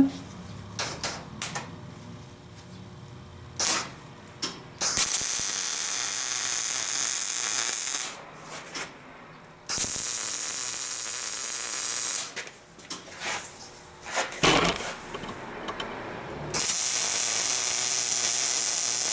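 Electric arc welder laying three tack welds, each a steady crackling hiss of about three seconds, fixing a nut to a small steel plate. Short clicks and knocks of metal being handled come between the tacks.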